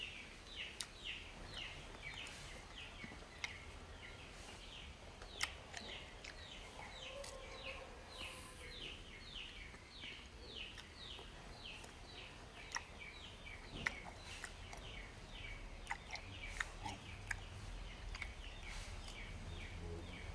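A bird chirping over and over in the background, about two or three short falling chirps a second, with sharp clicks and crunches of a person biting and chewing crunchy sour fruit scattered through it.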